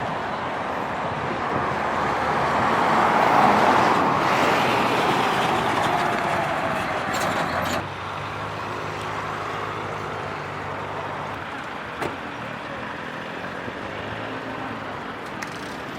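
Road traffic: a vehicle passes close, swelling to its loudest a few seconds in and fading with a falling pitch. The noise drops off abruptly about eight seconds in, leaving a quieter, steady low engine hum.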